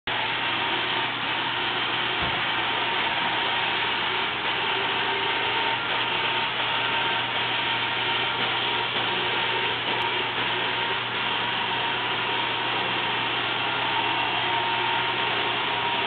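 iRobot Roomba robot vacuum running across a hardwood floor: a steady whir of its motors with a thin steady whine on top.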